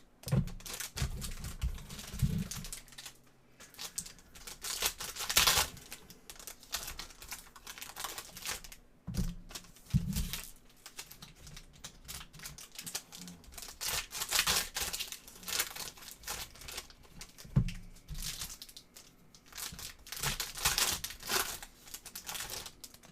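Plastic wrapping and packs from a box of trading cards being torn open and crumpled, in irregular rustling bursts with a few soft knocks.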